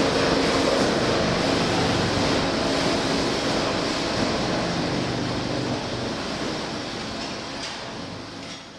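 Veneer peeling line machinery running: steady mechanical noise over a low hum, with a couple of light clicks near the end, gradually fading out.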